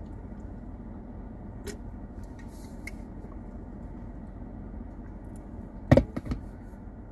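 Steady hum of a car's air conditioning running inside the cabin, with a few faint clicks and one sharp knock about six seconds in.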